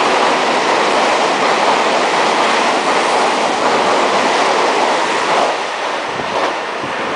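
Meitetsu commuter electric train running through a station at speed without stopping: a loud, steady rush of wheels on rail that begins to ease after about five seconds as the train draws away.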